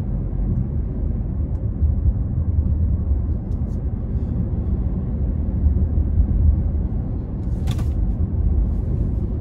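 Steady low rumble of road and engine noise inside the cabin of a moving car, with one short hiss about three-quarters of the way through.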